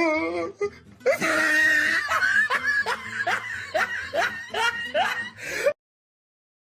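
A person laughing hard in a run of short, repeated 'ha' bursts, a meme laugh clip; it cuts off suddenly about a second before the end.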